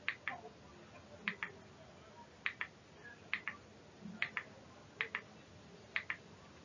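Faint double clicks, eight quick pairs at roughly one pair a second, not quite evenly spaced.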